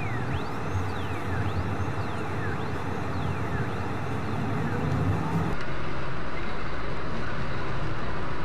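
Steady road and engine noise heard inside a moving car, with high squeaky sweeps about once a second that fade out after a few seconds. About five and a half seconds in, it cuts abruptly to a different, louder steady driving noise.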